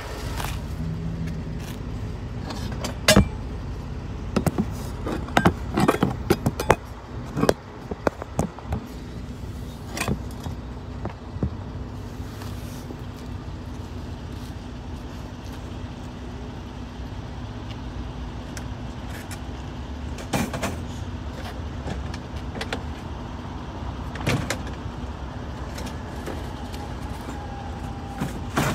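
A van's engine idling with a steady low hum, under scattered sharp clicks and knocks.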